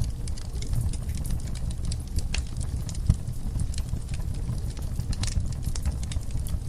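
Wood fire in a fireplace crackling, with irregular sharp pops over a low steady rumble; one louder pop about three seconds in.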